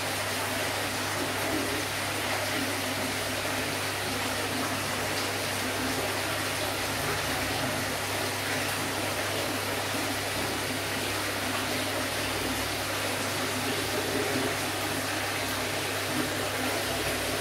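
Aquarium running steadily: a constant rush of moving water from the tank's filtration, with a low steady hum from its pump motor.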